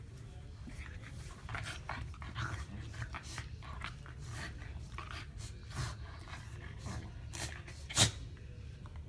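Shetland sheepdogs panting in quick, uneven breaths while playing, with one much louder sharp burst about eight seconds in.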